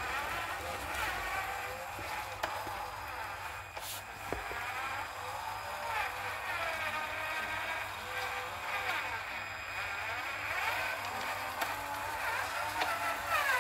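Cordless-screwdriver motor and gearing of a 1/16 RC crawler truck whining as it crawls over rocks, the pitch rising and falling slowly with throttle and load.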